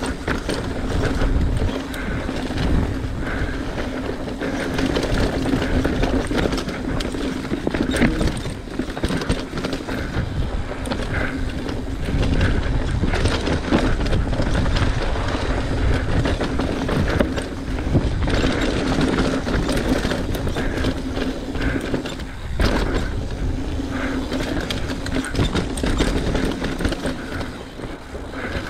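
Mountain bike riding fast down a rooty, rocky dirt trail: tyres rumbling over the ground, with frequent sharp knocks and rattles from the bike as it hits roots and rocks, and wind on the microphone. A steady low hum runs under it, breaking off briefly a little past the middle.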